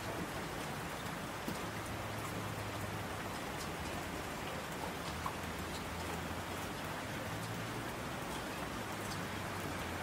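Steady rain, with occasional individual drops ticking sharply above the even hiss.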